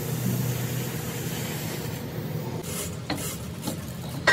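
Metal fabrication workshop noise: a steady machine hum, then a few short scraping strokes in the second half and a sharp knock right at the end.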